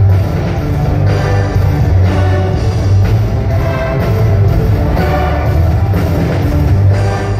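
Live music from an amplified string orchestra playing a rock arrangement, with a heavy bass line under sustained string notes and a steady beat.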